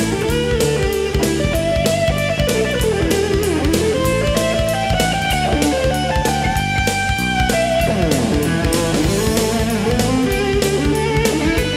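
Background music: a rock track led by electric guitar, with bass and a steady beat.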